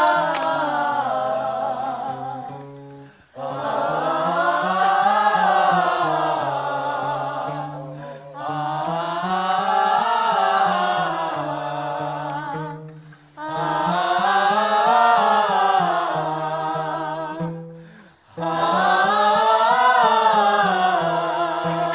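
A small group of voices singing vocal warm-up scales together, running up and back down the scale about five times, each run starting a step higher with a short breath between runs.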